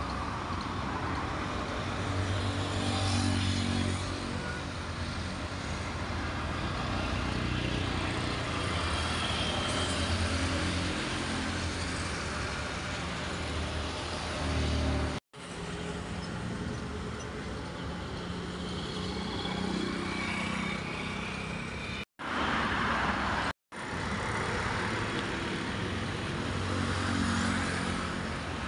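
Steady outdoor street noise with road traffic running, broken by three brief, sudden dropouts to silence about halfway through and twice more a little later.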